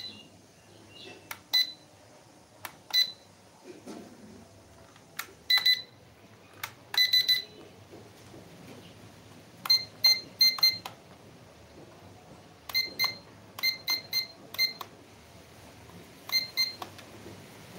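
Toy quadcopter drone remote controllers beeping as their buttons are pressed: short high beeps, sometimes single and sometimes in quick runs of two to four.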